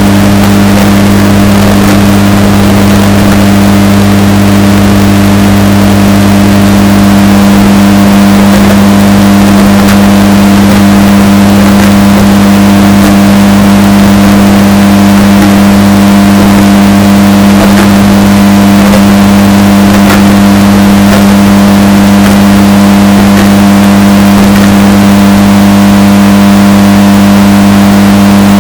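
Washing machine running with a steady, unchanging hum, bass-boosted so hard that it is heavily distorted and clipping at full loudness.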